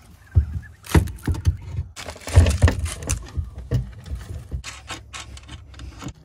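Irregular knocks, clunks and scrapes of metal hardware being handled against an aluminum diamond-plate boat deck while a small winch is fitted up beneath it and bolts are set through the plate.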